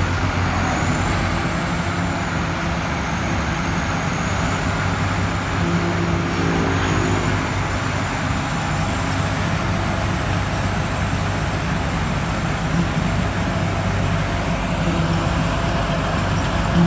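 Combine harvester's engine running steadily under load, with a thin high whine above it that wavers slightly in pitch.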